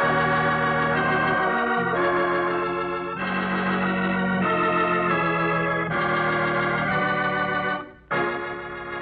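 Organ music playing a closing musical bridge: a run of held chords that change every second or so, breaking off briefly about eight seconds in before a new chord is held.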